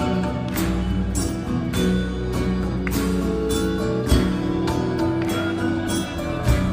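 Live rock band playing an instrumental passage with no vocals. The drum kit keeps a steady beat of about one hit every 0.6 s over held low notes and guitar.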